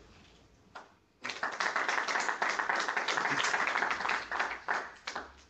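Audience applauding at the end of a talk. The clapping starts about a second in, holds steady for about three seconds, then thins to a few last claps and stops.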